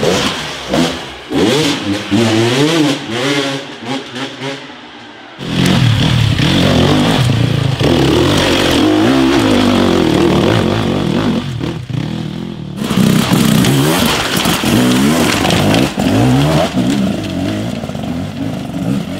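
Enduro motorcycle engines revving in short, rising and falling throttle bursts as the bikes are ridden over stone steps. The sound changes abruptly about five seconds and about thirteen seconds in, where one clip cuts to the next.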